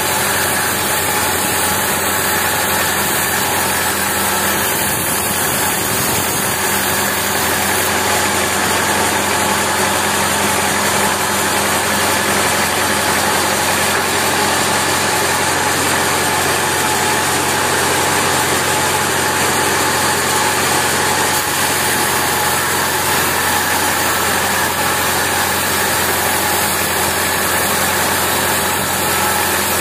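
Band saw mill running and ripping a long teak board as it is fed through the blade: a loud, even sawing noise over a steady motor hum, unchanging throughout.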